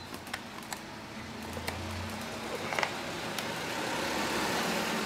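Light clicks and taps of plastic Play-Doh cake maker parts being handled and pressed together, the loudest a quick double click near the middle. Under them a steady rushing noise grows louder toward the end.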